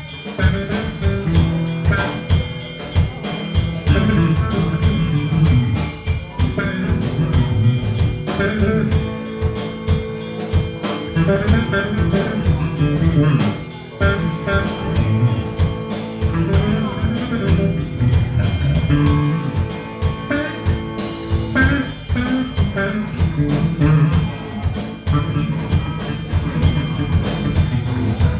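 Band music with no singing: a drum kit keeps a steady beat under guitar.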